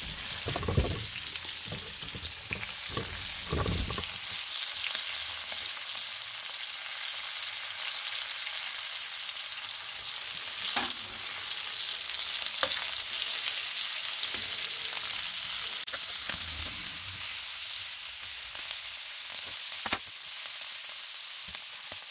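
Sausages and hot dog pieces frying in a pan, a steady sizzle with occasional sharp pops of spitting fat. A few low knocks come in the first few seconds.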